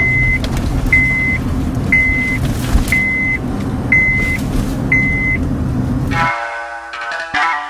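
A vehicle's reversing alarm beeps six times, about once a second, over a steady low engine rumble. Both stop suddenly about six seconds in, and music starts.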